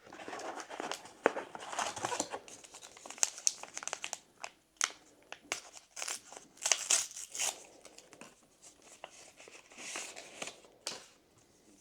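Plastic-foil booster pack wrapper crinkling and being torn open by hand, in irregular crackles and rustles.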